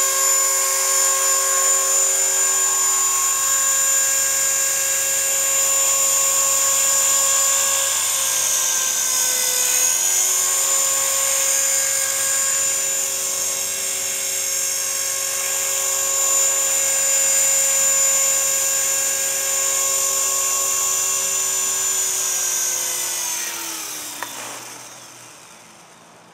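EXI 450 SE electric RC helicopter (a T-Rex 450 clone) running: a steady high motor-and-gear whine with rotor buzz, dipping briefly in pitch about ten seconds in. Over the last few seconds the whine glides down and fades as the rotor spools down.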